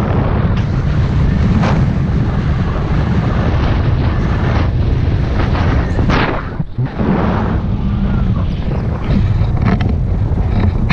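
Rushing air from a paraglider's flight buffeting the camera microphone: a loud, continuous wind rumble with irregular gusts, easing briefly about two-thirds of the way through.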